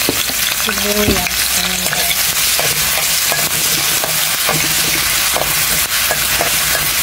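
Chopped onions sizzling steadily in hot oil in a pan, with a spatula stirring them and clicking and scraping against the pan now and then.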